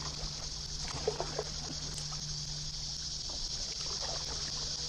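Fast, flood-swollen river water rushing past a sit-on-top kayak in a steady hiss, with a few light splashes about a second in.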